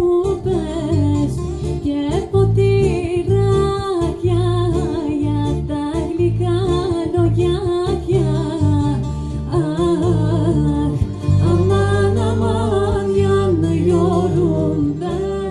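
Rebetiko band playing a song: a voice singing a wavering melody over plucked strings and an electric bass line. It fades down near the end.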